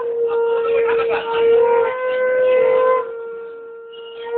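Conch shell (shankha) blown in one long, steady note, with voices over it.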